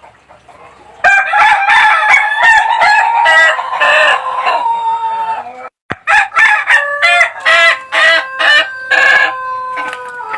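Ayam Ketawa ('laughing chicken') rooster crowing: two long crows, each a rapid staccato string of cackling notes over a held note that slowly falls, the breed's laugh-like crow. The first crow cuts off suddenly about halfway through, and the second starts right after.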